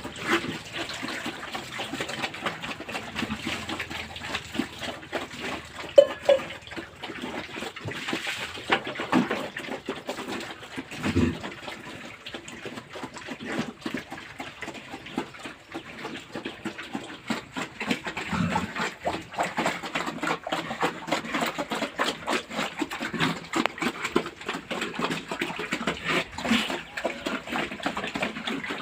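Pigs feeding on wet mash: a steady, irregular run of chomping and slurping, with a few louder low grunts.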